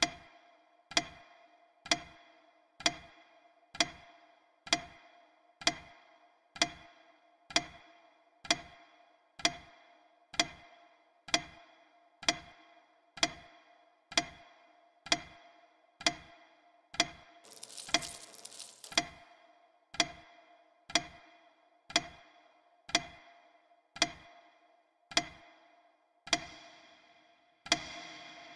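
Steady clock-like ticking, a little faster than one tick a second, each tick carrying a short ringing tone. A brief rush of hiss comes about two-thirds of the way through.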